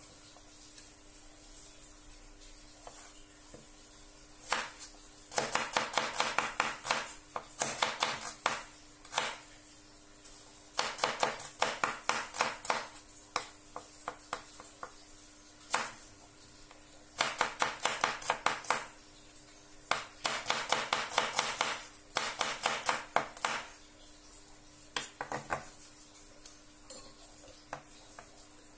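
Kitchen knife slicing garlic cloves on a wooden chopping board: quick runs of sharp taps on the board, each run lasting a second or two, with short pauses between.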